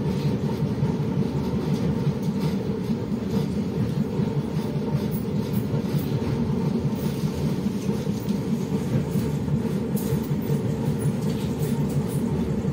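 LiAZ-677M city bus's ZIL V8 petrol engine running, a steady low rumble heard from inside the cabin, with a few faint clicks near the end.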